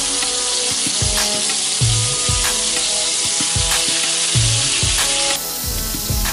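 Marinated raw jackfruit pieces sizzling in hot oil as they shallow-fry in a kadai, with more pieces added to the pan.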